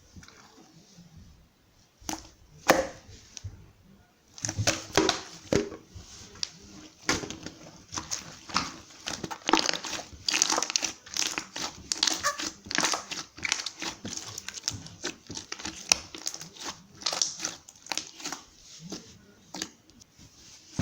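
Crinkling and rustling handling noise: a few sharp crackles, then from about four seconds in a dense, irregular run of small crackles.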